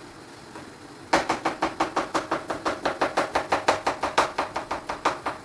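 Knife dicing okra, rapid even chops, about five or six a second, starting about a second in.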